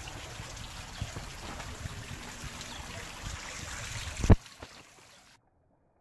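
Water from a tiered fountain splashing and trickling steadily into its basins. About four seconds in there is one sharp, loud knock, after which the splashing drops away to near silence.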